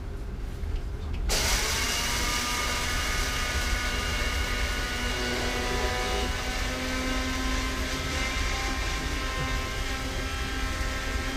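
Electric spice grinder switched on about a second in. Its motor whine rises briefly as it spins up, then it runs steadily while grinding Sichuan peppercorns.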